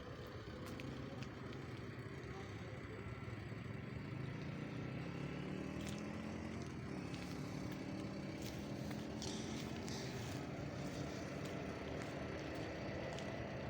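A motor vehicle engine running, its pitch rising steadily for a few seconds as it speeds up, with scattered sharp clicks.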